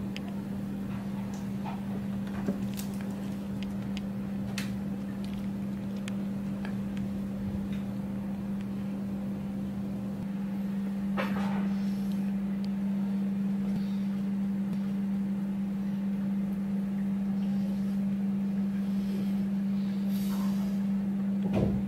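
A steady low hum, with a few faint clicks and a short rustle about eleven seconds in.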